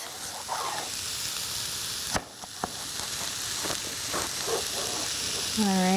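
Chopped onions and carrots sizzling steadily in a skillet. About two seconds in comes a single sharp knock, the chef's knife meeting the wooden cutting board as celery is cut into strips, followed by a couple of lighter taps.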